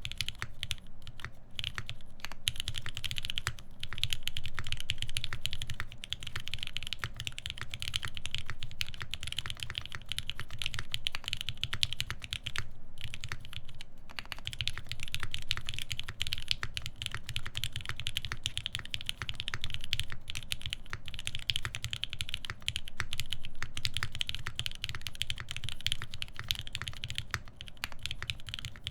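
Continuous fast typing on a custom mechanical keyboard with lubed Lavender linear switches on a full FR-4 plate and GMK keycaps: a dense run of rapid key clacks, pausing briefly about thirteen seconds in.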